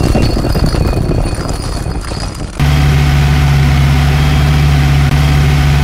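An engine running, rough and noisy at first, then settling about two and a half seconds in into a loud, steady low drone that dips briefly near the end.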